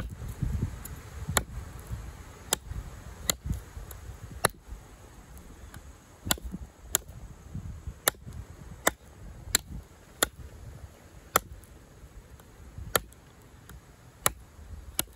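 Sleipner-steel blade of a LionSteel M7 fixed-blade knife chopping into a hard log. A series of sharp chops comes at a slightly uneven pace, about one a second.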